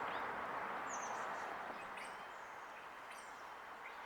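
Small birds chirping: a few short high chirps and a quick falling run of notes about a second in, over steady outdoor background noise.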